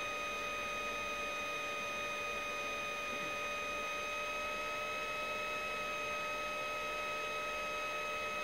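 Laptop cooling fan spinning very hard: a steady whir with a steady high-pitched whine running through it.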